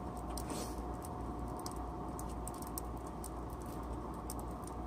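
Coal forge air blower running with a steady hum and a constant whine, with scattered light clicks and crackles from the freshly lit coal fire.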